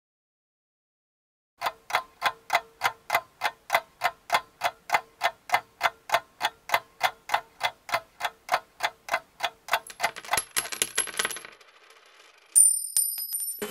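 A steady ticking, about four sharp clicks a second, that speeds up and fades away, followed by a loud, bright ringing ding.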